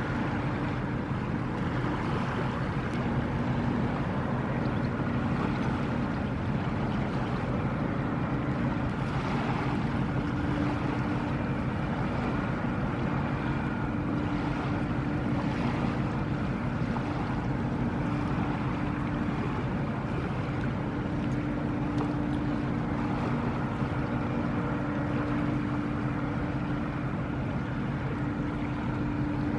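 Large ro-ro car carrier's machinery running with a steady low drone and a constant hum, over an even hiss.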